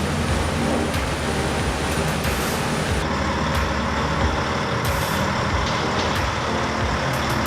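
Heavy diesel vehicle engine running steadily under load, with a constant hiss over it.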